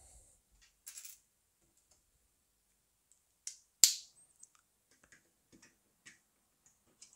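A few sharp clicks and light taps of plastic LEGO bricks being handled and pressed on a model, the loudest a little before four seconds in, with quiet gaps between.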